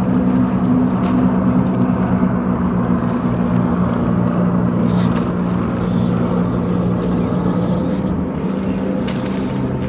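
Motorboat engine running at a steady pitch, with a couple of faint clicks.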